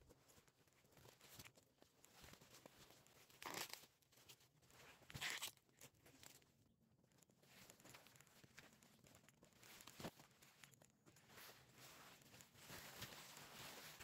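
Ears of corn being snapped and torn off their stalks among rustling leaves and husks: two loud tearing snaps, about three and a half and five seconds in, a sharp click about ten seconds in, and soft rustling between.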